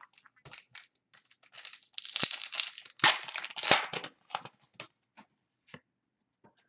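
Foil trading-card pack of Totally Certified basketball cards being torn open by hand, its wrapper crinkling in a run of rustling tears that are loudest in the middle, then a few light clicks near the end.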